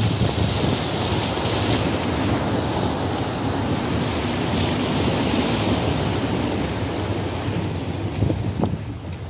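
Open-top safari jeep driving through a shallow flooded stretch of dirt track: a steady rush of engine, water splashing under the wheels and wind on the microphone, easing slightly near the end.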